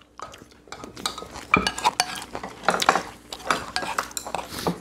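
Cutlery clinking and scraping against bowls during a meal: a run of irregular small clicks and knocks, with one louder knock about a second and a half in.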